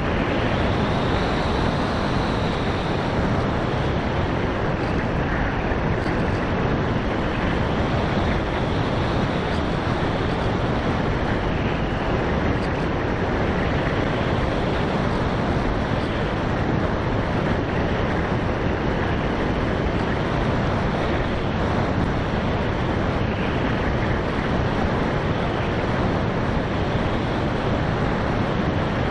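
Steady rushing wind on the onboard FPV camera's microphone as the Easystar 2 RC plane flies at altitude, with no motor note to be heard.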